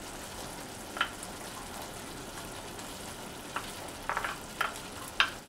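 Pork and tomato stew sizzling steadily in a skillet, with a few short taps as potato and carrot cubes are scraped off a bowl with a wooden spoon and drop into the pan, most of them in the last two seconds.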